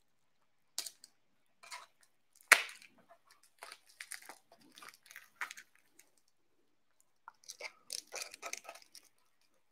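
Plastic wrap being cut open and peeled off a printer part: scattered crinkles and crackles, with one sharp snap about two and a half seconds in and busier stretches of crackling in the middle and near the end.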